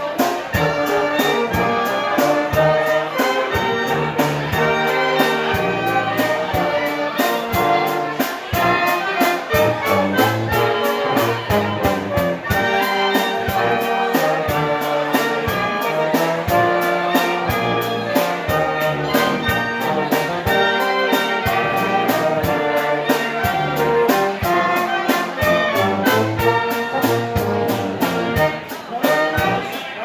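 Live Bavarian-style brass band playing: trumpets and clarinet carry the tune over tuba bass and a drum kit keeping a steady beat.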